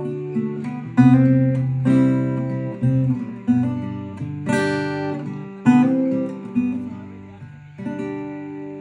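Background music: acoustic guitar strumming chords, each one ringing on and decaying, trailing off near the end.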